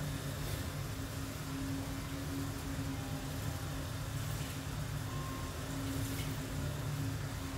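A steady low mechanical hum with a constant tone, unchanging throughout.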